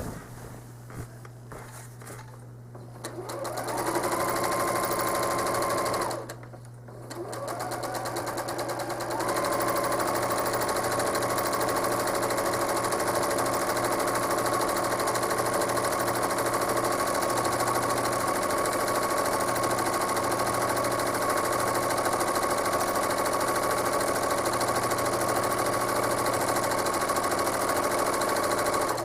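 Home sewing machine stitching free-motion quilting: the motor winds up to a steady fast run about three seconds in, stops briefly near six seconds, then winds up again and keeps running steadily.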